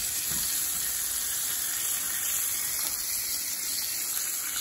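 Pompano fillet frying skin side down in hot butter in a pan: a steady sizzle.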